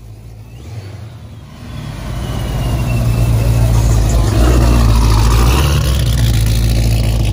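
Modified Dodge Charger pulling away and accelerating, its exhaust rumble getting much louder about two seconds in and staying loud.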